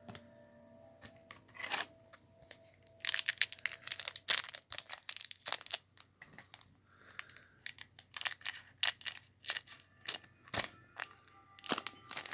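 A trading-card pack wrapper being torn open and crinkled by hand: a run of sharp crackles and rips with short pauses between them, the densest about three to six seconds in.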